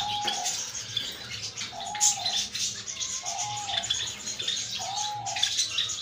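Java sparrows in an aviary cage chirping continuously in quick, high notes. A lower, even call repeats about every second and a half. One sharp click sounds about two seconds in.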